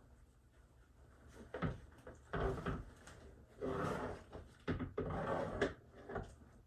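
Handling noises as weight is put into an animatronic Halloween prop to keep it standing: a string of short knocks, scrapes and rustles at irregular intervals.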